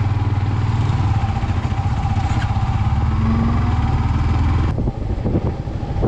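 Motorcycle engine running steadily under way, heard from on the bike as a loud, even low drone. About five seconds in it drops suddenly and turns uneven.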